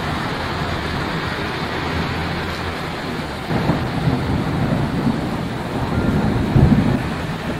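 A large fire burning with a steady roar and crackle, with low rumbling surges that grow louder after about three and a half seconds.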